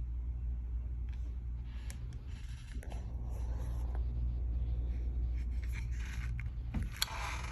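Light scraping and rustling of handling noise, with a few sharp clicks near the end, over a steady low hum.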